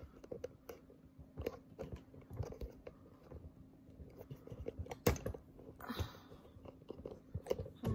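Crinkling and rustling of plastic mail bags and handling knocks as the camera is picked up and set on a tripod, with a sharp knock about five seconds in.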